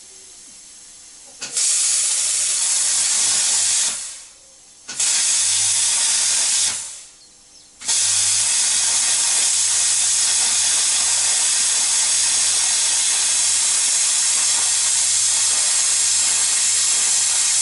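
Hand-held power tool cutting through metal with a loud, steady hiss: three cuts, the first two short and each fading away over about a second, the third long and unbroken.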